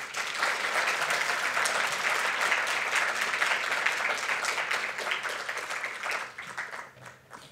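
Audience applauding, many hands clapping; it starts at once and dies away near the end.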